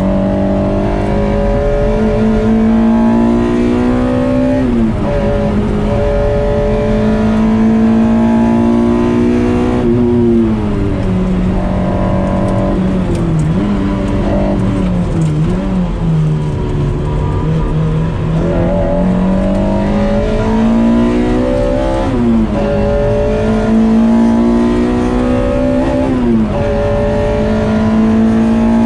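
Toyota 2ZZ-GE four-cylinder engine of a race-prepared MR-S pulling hard through the gears. The revs climb steadily and drop sharply at each upshift, four times, with a stretch in the middle where they fall and bob up and down as the car slows for corners.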